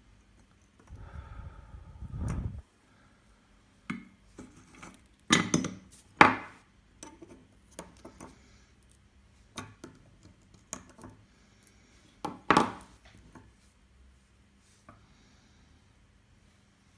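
A breath blown over the soldering work, a low rush lasting about a second and a half, followed by scattered sharp clicks and knocks of small tools and parts being handled on a workbench, the loudest around six seconds in and again near thirteen.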